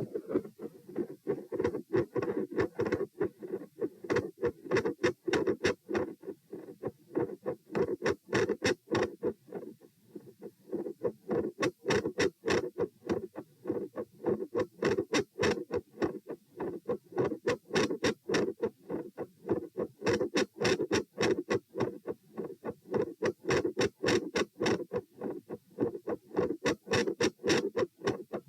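Heart sounds over the pulmonic area, heard through a stethoscope: a fast, steady lub-dub beat of first and second heart sounds. The loudness of the beats swells and fades in waves every few seconds, a phasic change in S1 and S2 intensity. The second sound is split.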